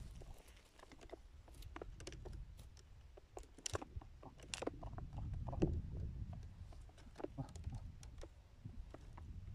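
Faint, scattered light clicks and crackles, a few louder ones around the middle, over a low wind rumble on the microphone.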